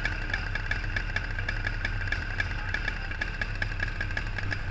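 Two-stroke kart engine idling steadily, with an even, rapid pulse.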